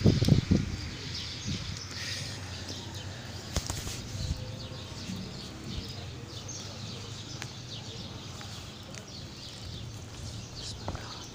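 Small birds chirping on and off over a steady light hiss of rain. A few loud low thumps in the first second and a sharp click a few seconds later.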